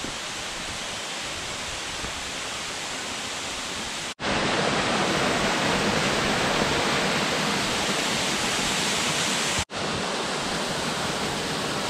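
Dark Hollow Falls, a cascading mountain waterfall, rushing steadily. The sound drops out twice, briefly, about four and ten seconds in, and is louder between the two.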